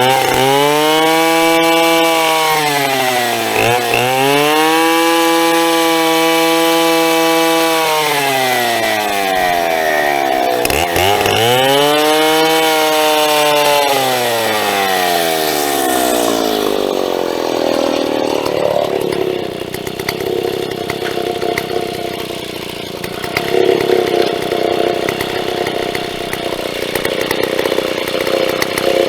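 Big vintage Stihl two-stroke chainsaw revved to full throttle and held there, dipping briefly, easing off and revving up again, then sliding down in pitch for several seconds and running lower and rougher for the last third.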